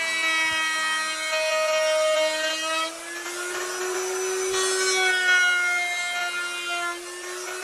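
Electric plunge router running at full speed, a steady high whine over the hiss of the bit cutting along the edge of a wooden cabinet door panel.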